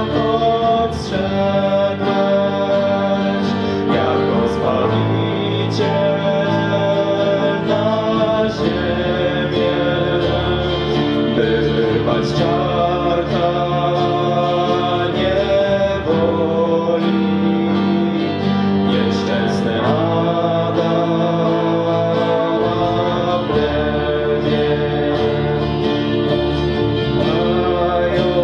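A song: singing over guitar accompaniment, held notes and changing chords continuing steadily throughout.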